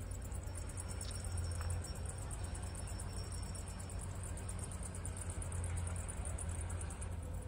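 Outdoor ambience: a steady low rumble under a faint even hiss, with a thin high tone that holds for the first few seconds.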